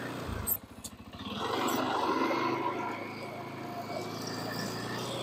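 ATV engine running as it pushes snow with a front plow blade whose edge is capped with ABS pipe. A sharp knock about half a second in is followed by a quieter second, then the engine and plowing come back louder before settling to a steady hum.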